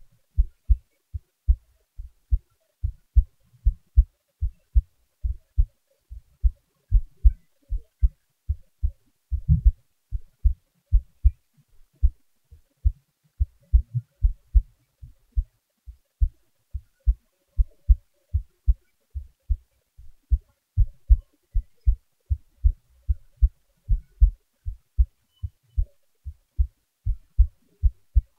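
A person's own heartbeat, recorded close and turned up loud: low, dull beats, about two a second, in a steady resting rhythm.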